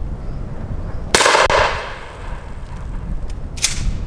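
A single shot from a Mossberg Persuader 12-gauge pump shotgun firing a light 24-gram fibre-wad shell, about a second in, with a ringing tail that dies away over most of a second. A shorter sharp noise follows near the end, and wind rumbles on the microphone throughout.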